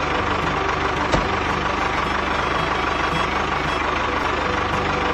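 Diesel tractor engine running steadily with an even low beat, and a single sharp click about a second in.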